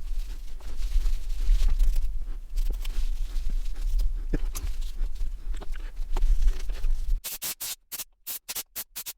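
Low rumble with scattered scrapes and clicks, like handling noise on the microphone. About seven seconds in it cuts off and background music starts with a choppy beat of sharp, evenly spaced pulses.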